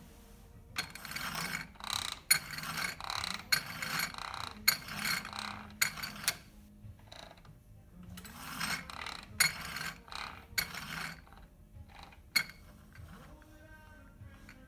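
Burman motorcycle clutch and its chain drive being turned over slowly, a ratcheting, clicking mechanical clatter in two spells, from about a second in to six seconds and again from about eight to eleven seconds, with one more click near the end.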